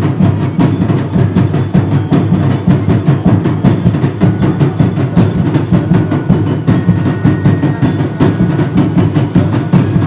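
Live street-dance drum ensemble of snare and bass drums playing a fast, driving, continuous beat, the strikes coming many times a second.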